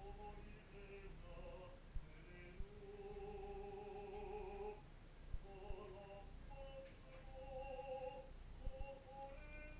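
A solo classical singer practising, singing held notes in phrases with short pauses between them. Several brief low thumps are heard alongside.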